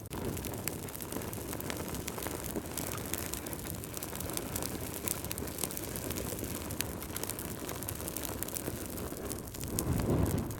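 Wood fire burning in a fireplace: logs crackling and popping in frequent sharp snaps over a steady low rush of flames, which swells louder near the end.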